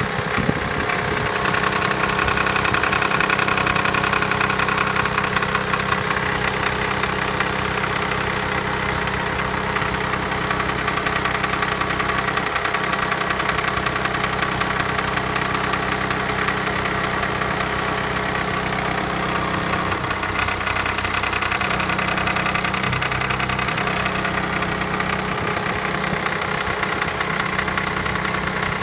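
BMW E90 320d's four-cylinder diesel engine running steadily, with a fast, even clatter throughout. The owner calls it a bad sound and cannot tell what it is, even though a new timing chain has just been fitted.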